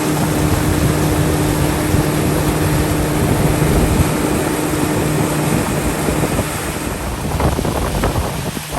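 Pontoon boat's motor running with a steady hum under wind buffeting the microphone and water noise; the hum fades out about six seconds in.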